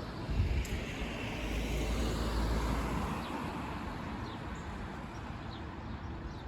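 Strong gusty wind rushing, with the gust swelling about a second in and buffeting the microphone with a low rumble before easing after about three seconds.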